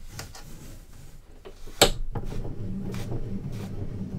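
A sewn book text block slid across the metal bed of a guillotine paper cutter and set against its back fence, with soft rubbing of paper on metal and one sharp knock about two seconds in. A steady low hum starts right after the knock.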